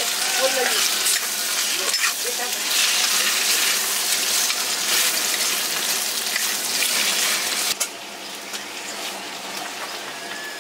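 Food sizzling as it fries in a hot pan, with stirring, as a dense steady hiss. A sharp click comes near the end, after which the sizzling is quieter.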